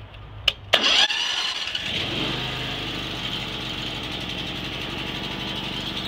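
Key-started gasoline engine of a Range Road 5032 bandsaw sawmill starting: a click, a brief crank that catches about a second in, then the engine running steadily.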